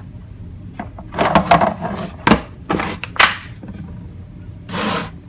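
Handling and wiping noises: rubbing and cloth swishes with a few sharp clicks and knocks, as a tool case is wiped down and handled. The sharpest clicks come a little after two and three seconds in, and a longer swish near the end.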